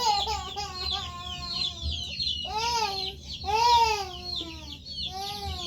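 A flock of chickens clucking and calling: several drawn-out calls that rise and fall in pitch over constant overlapping higher chirps.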